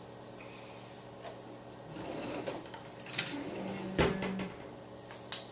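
Kitchen handling sounds at the counter: rustling and a few light clicks, with one sharp knock about four seconds in, over a steady low hum.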